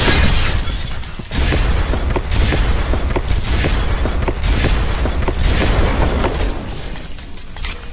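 Cinematic intro sound effects: glass shattering and deep booming hits over a dramatic music bed, with a steady run of sharp impacts. There are heavy hits at the start and about a second in, and the sound fades near the end.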